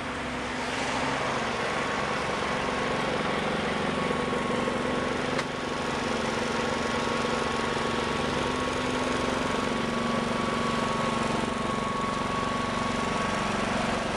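Generator engine running steadily at a constant speed, giving an even mechanical drone with a steady hum.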